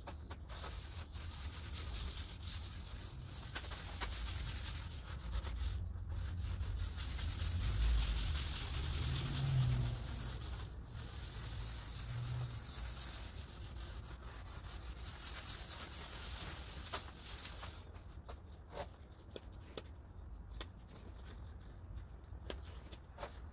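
A pad rubbing back and forth over a white oak table top as finish is wiped on: a steady scrubbing hiss that stops about three-quarters of the way through, leaving a few light clicks. A few low knocks come near the middle.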